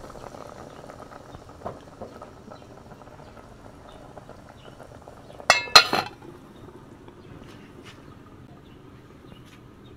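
Pot of water boiling softly on a charcoal stove. About halfway through, a metal lid clanks down onto the pot twice in quick succession with a ringing clink.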